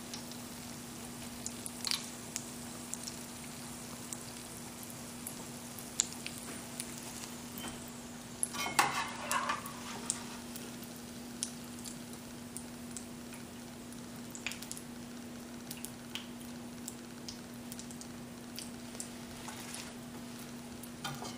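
Battered potato balls (batata vada) sizzling as they deep-fry in hot oil in a small wok, with occasional sharp clicks and scrapes of a metal slotted spoon against the pan. A steady low hum runs underneath.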